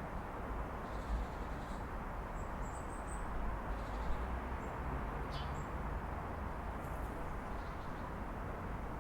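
Steady, low city traffic hum heard through an open window, with a few faint, high bird chirps about two and a half seconds in and again past the middle.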